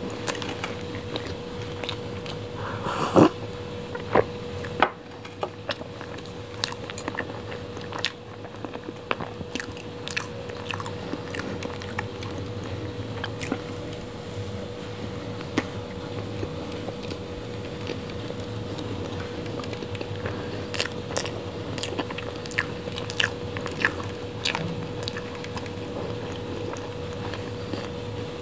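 Close-miked bites and chewing of soft red velvet cake, with many short wet mouth clicks. The loudest bites come about three to five seconds in. A faint steady hum runs underneath.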